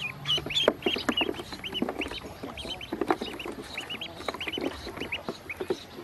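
A brood of ducklings peeping: many short, high peeps, each rising and falling, coming in quick succession, with scattered taps and knocks on the plastic tub they stand in.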